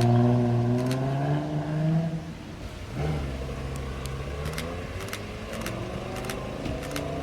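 Sports car engine revving, its pitch climbing and then held high for about two seconds before it eases off. From about three seconds in, an engine runs at low revs.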